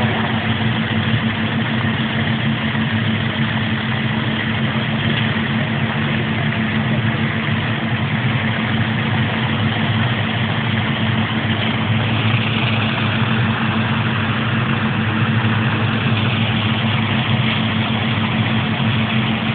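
An engine running steadily at idle, an even low hum that does not change.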